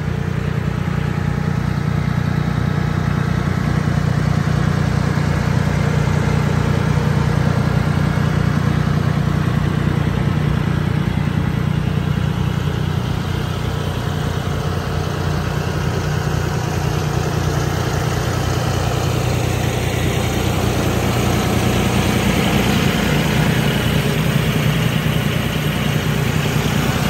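John Deere 5075 tractor's diesel engine idling steadily.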